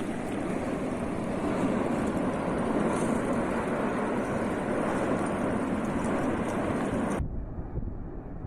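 Steady, rushing roar of an erupting volcano, like a jet, that cuts off abruptly about seven seconds in and gives way to a duller, fainter rumble.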